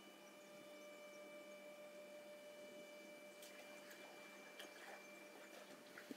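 Faint, steady electrical hum of a trash rack cleaning machine's drive as its rake is lowered, with a few faint clicks in the second half; the hum dies away near the end.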